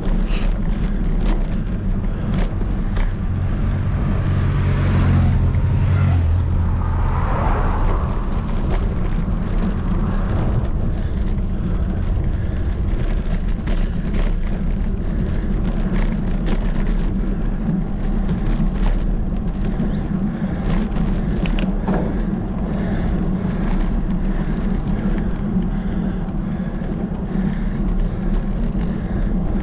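Steady wind and road rumble on a camera riding along on a bicycle climbing a road, with a louder swell about five seconds in as a car passes.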